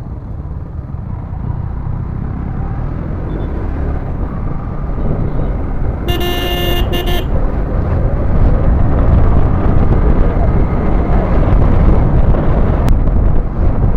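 Riding on a Yamaha MT15 motorcycle in traffic: a low rumble of wind on the microphone and engine, getting louder about eight seconds in as the bike speeds up. A vehicle horn honks for about a second near the middle, briefly broken.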